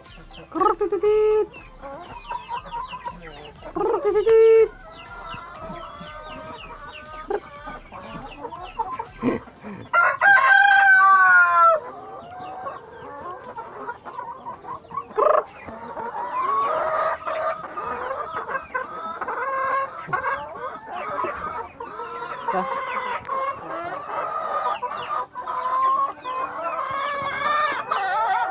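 Chickens clucking, with two short loud squawks in the first few seconds and a rooster crowing once for about two seconds near the middle. From a little past halfway, many hens cluck at once in a continuous chorus.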